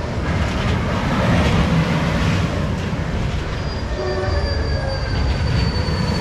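A spinning disc thrill ride's car rolling back and forth on its steel track: a steady rumble of wheels on rail, with a thin high wheel squeal in the second half.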